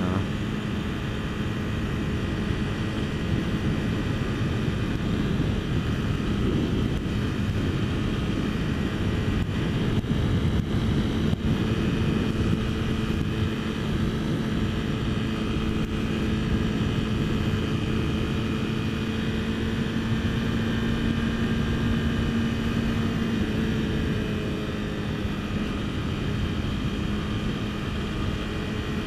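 Honda CBR250R motorcycle engine running at a steady cruise, one even note, with wind and road noise. The engine note eases off slightly about three-quarters of the way through.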